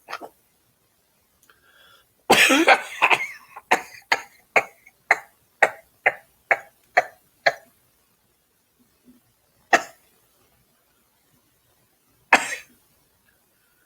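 A man coughing in a fit: a heavy cough about two seconds in, then a run of short coughs about two a second, and two single coughs near the end. It comes from breathing in the powdery coating of a cheese-flavoured snack stick while eating it.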